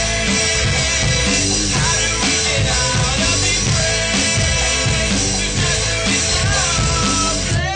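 Loud music with a steady beat, drums and a full band playing.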